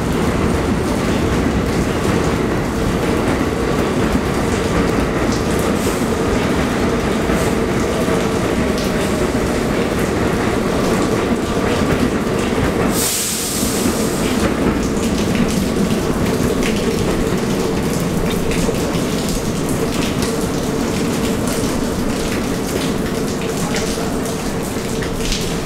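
New York City Subway train running along an elevated steel viaduct: a steady rumble of wheels on rail with many small clicks and a faint steady hum. A brief high hiss comes about halfway through.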